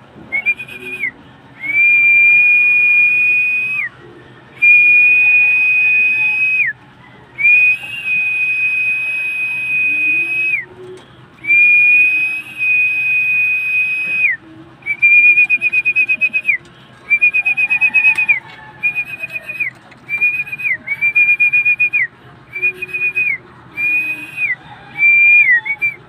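A high whistle sounded in more than a dozen notes, the first ones long and steady, the later ones shorter and some trilled, each ending with a quick drop in pitch. It is the whistle a pigeon keeper gives to call a bird into the loft.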